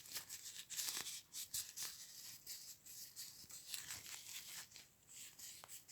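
Isopropyl alcohol wipe rubbing over a plastic camera part: soft, scratchy rustles in short, uneven strokes as the part is cleaned of dirt.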